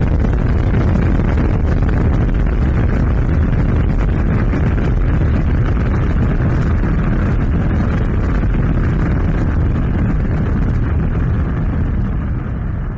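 Sound-effect explosion rumble: a long, steady, deep rolling roar that begins to fade near the end.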